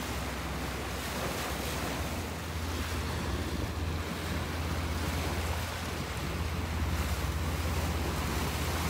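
Wind buffeting the microphone and water washing past the hull of a sailboat under way, over a steady low rumble.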